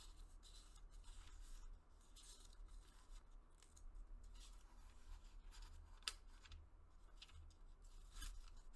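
Faint rustling and soft flicks of thin missal pages being turned by hand, one after another, with one sharper tick about six seconds in.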